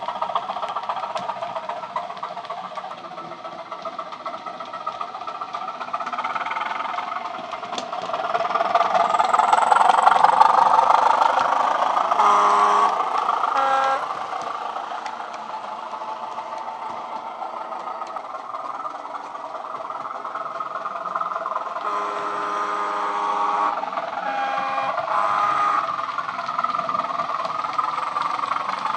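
Sound-decoder recording of a Class 205 'Thumper' diesel-electric unit played through a model locomotive's small speaker: the engine runs steadily and swells to its loudest about ten seconds in. The horn sounds several times, twice briefly in the middle and again later with one longer blast.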